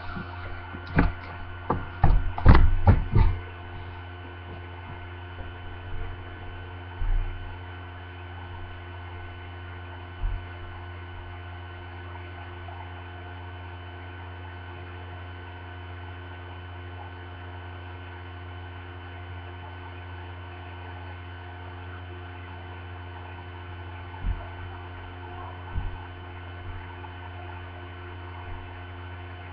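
Steady electrical mains hum made of several fixed tones, picked up by the webcam's microphone. A cluster of knocks and bumps comes in the first three seconds as the webcam is handled, and a few faint thumps follow later.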